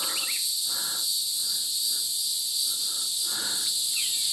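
Evening chorus of crickets, a steady high-pitched trilling, with a few soft footsteps on the trail underneath.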